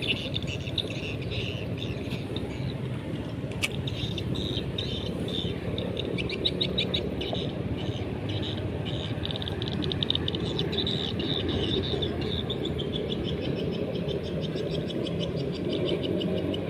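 Riverside ambience: rapid, high-pitched chirping trills keep repeating over a steady rush of flowing river water.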